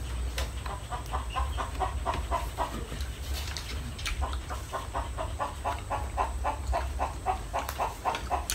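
A chicken clucking in a steady run of short notes, about four a second, over a low rumble.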